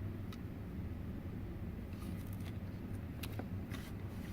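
A few faint clicks and light knocks of car interior trim parts being handled and worked loose, over a steady low hum.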